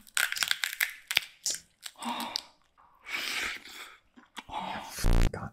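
Close-miked mukbang ASMR eating: crunching, cracking and wet chewing of a sauced crab's shell and meat, in irregular clicks and bites. A short loud buzzing tone cuts in about five seconds in.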